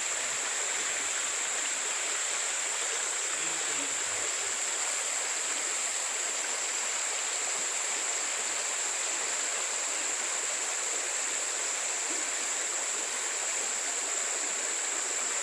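Tropical rainforest ambience: a continuous high-pitched insect drone over a steady, even hiss, unchanging throughout.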